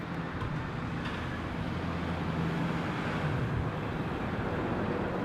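A steady low mechanical hum over even background noise, fading somewhat about three and a half seconds in.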